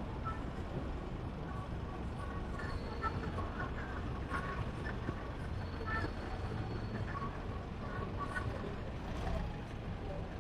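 Busy street-market ambience: a steady low rumble with indistinct background chatter and a few scattered clicks and clatters.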